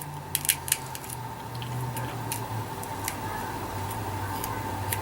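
Double-sided tape being handled and pressed onto an RC car's ESC: a few sharp crackles in the first second, then scattered small clicks, over a steady low hum.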